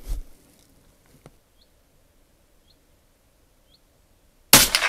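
A .22 LR Tikka T1X rifle fires one Remington Yellow Jacket hypervelocity round near the end, a single sudden shot. Before it there is a soft knock, a click about a second in, and three faint high chirps about a second apart over near-silence.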